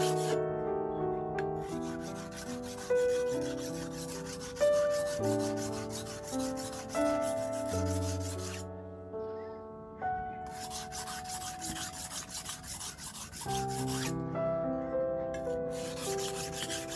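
Steel knife blade being honed by hand on a sharpening block: quick back-and-forth scraping strokes in long runs, with a short pause about halfway through and another near the end. Background music with piano-like notes plays underneath.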